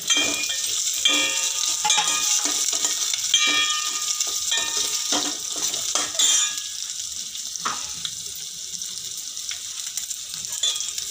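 Chopped capsicum and onion sizzling in hot oil in a stainless steel pot, with a steel ladle scraping and clinking against the pot as they are stirred. The clinks thin out after about seven seconds, leaving mostly the sizzle.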